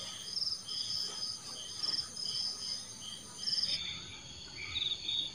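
Crickets chirping in short pulsed trills repeated every half second or so, over a steady high-pitched insect drone.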